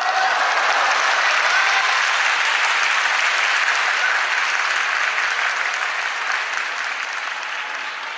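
Sumo arena crowd applauding loudly, easing off slowly toward the end.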